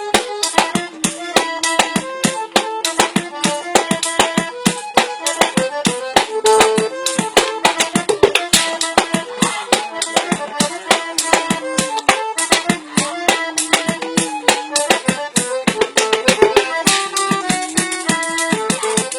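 Fast, steady drumming on a drum kit made of tin cans, with many sharp strikes a second, played along with music that carries a held, stepping melody.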